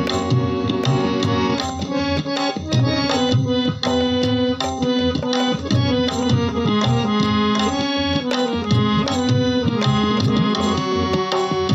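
Instrumental interlude of a Hindi devotional song (bhajan): tabla plays a steady rhythm under a sustained reed-keyboard melody, with no singing.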